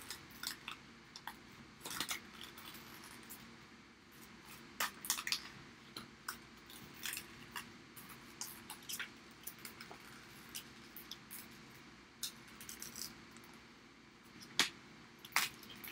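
Blue stencil vinyl being weeded by hand, the excess film peeled off its backing sheet with irregular faint crackles and rustles of the plastic, one louder crackle near the end.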